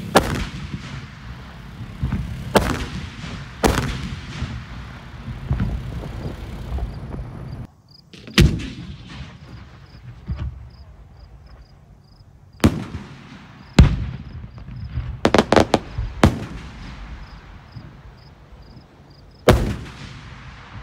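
Daytime aerial fireworks canister shells bursting overhead: about a dozen sharp booms at irregular intervals, several in quick clusters, each trailing an echoing low rumble.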